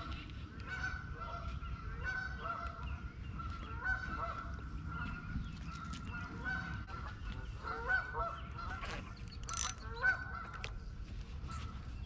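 Canada geese calling, a steady run of short honks repeated again and again, over a low rumble.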